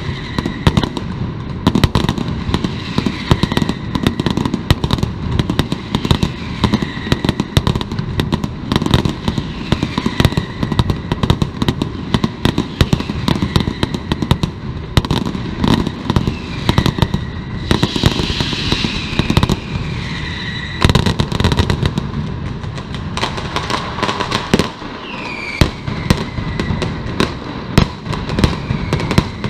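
Mascletà firecrackers going off in a rapid, unbroken barrage of loud bangs, with a high falling whistle cutting through every few seconds.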